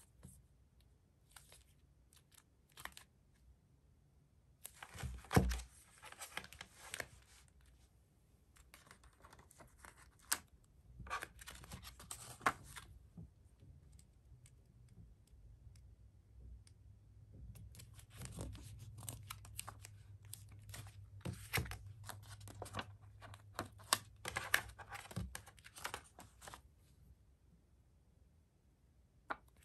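Clear plastic sleeves crinkling and clicking as they are handled, and small round paper stickers peeled from their sheet and pressed onto the plastic, in scattered clusters of light rustles. One louder knock comes about five seconds in.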